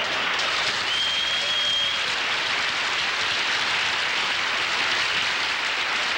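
Television studio audience applauding steadily after a comedy punchline, with a brief high steady tone about a second in.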